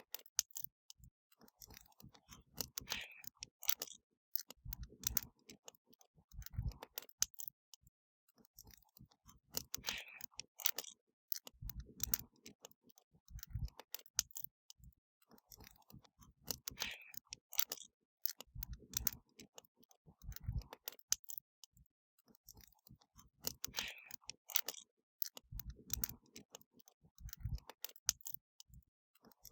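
Wood fire crackling, with irregular sharp pops and snaps and an occasional low thump.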